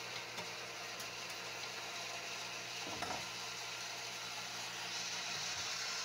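Shallow-well jet pump running with a steady hum while its priming plug is wrenched shut after priming, with one knock about halfway through. A hiss rises near the end.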